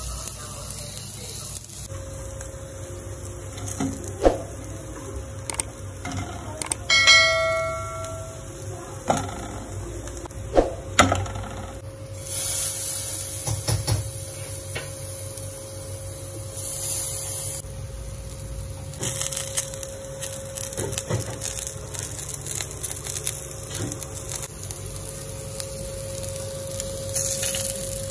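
Chicken sizzling on the red-hot elements of an electric barbecue grill, the hiss coming and going, over a steady hum. A few sharp metallic clicks sound in the first half, and about seven seconds in there is a single bell-like metallic ring.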